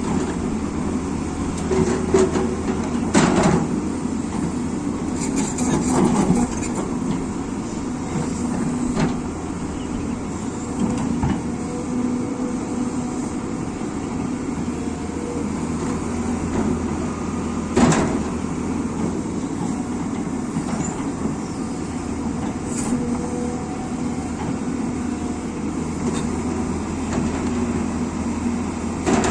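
Excavator's diesel engine running steadily under work, with a few sharp knocks from the machine along the way, the loudest about two thirds of the way through.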